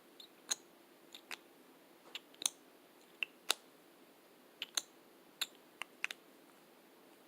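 Lipstick tubes and caps handled for ASMR: a run of sharp, short clicks at irregular intervals, some in quick pairs.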